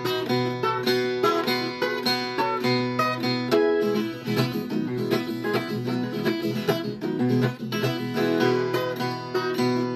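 Viola caipira played solo: a quick run of picked notes and strums.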